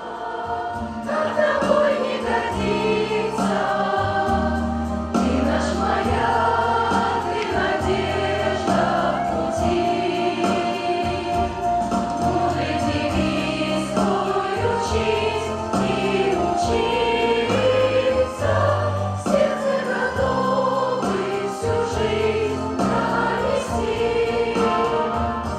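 Children's choir singing the school anthem over an instrumental accompaniment with a steady bass line.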